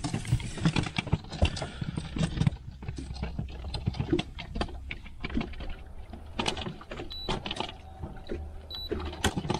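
Irregular clicks, knocks and rattles of fishing gear being handled on a boat, over a steady low rumble.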